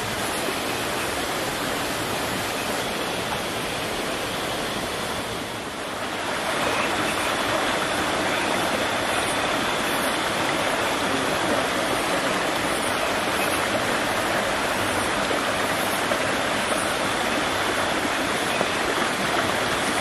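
Steady rush of water from a waterfall and its stream, dipping slightly about five seconds in and a little louder from about six seconds on.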